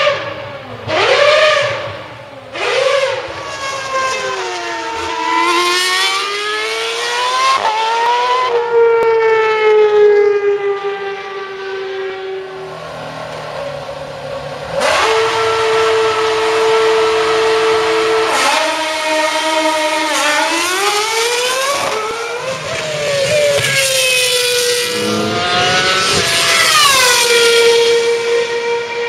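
2013 Formula 1 cars' 2.4-litre V8 engines running at high revs as they pass one after another: notes climbing through quick upshifts, pitch falling away as each car goes by, and long steady high notes held at constant revs.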